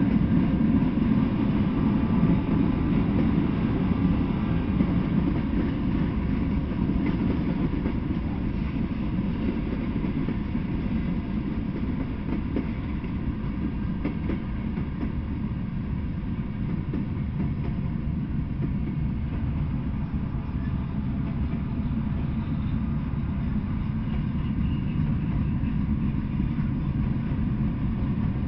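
Freight train of tank cars, covered hoppers and boxcars rolling past, its wheels on the rails making a steady low rumble.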